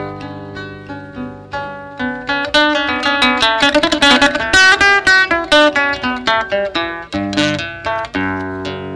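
Flamenco acoustic guitar played live, plucked notes quickening into a loud flurry of rapid notes in the middle, then easing back to slower notes near the end.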